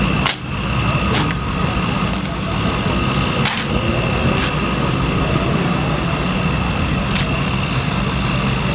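Drill rifles of a precision drill team being spun, slapped and caught: about five sharp clacks, a second or more apart, over a steady low rumble.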